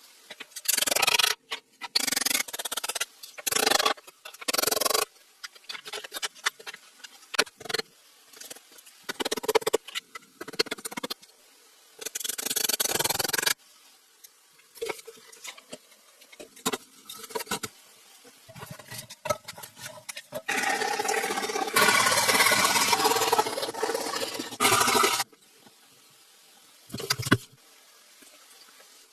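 Hand-working sounds from bushcraft camp building: irregular scraping strokes and sharp knocks with short pauses, with a longer continuous scraping stretch of a few seconds about two-thirds of the way through.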